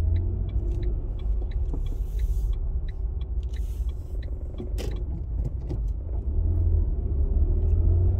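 A car driving, heard from inside the cabin: a steady low engine and road rumble with faint scattered ticks, growing louder over the last couple of seconds.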